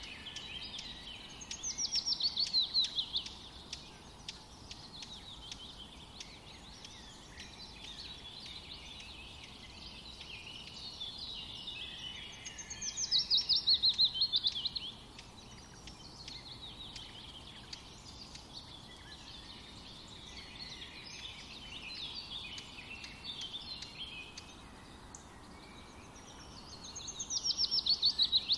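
Small songbirds singing: continuous high twittering, with a louder trill of quick notes falling in pitch that comes three times, about every twelve seconds.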